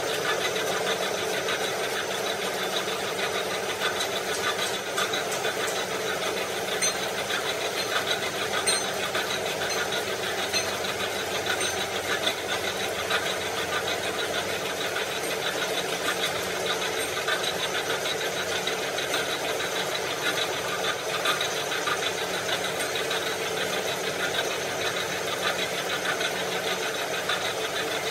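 An engine running steadily with a fast, even rhythm.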